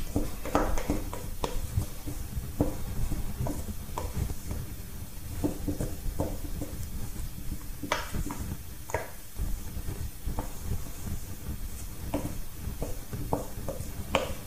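Wooden spoon stirring and scraping pastry dough in a stainless steel mixing bowl, with irregular knocks and scrapes, as cold water is worked into the flour and fat and the dough starts to come together.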